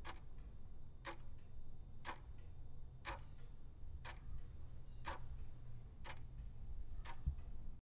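Countdown-timer sound effect: a clock ticking once a second, eight ticks in all, over a steady low rumble, with a low thump near the end.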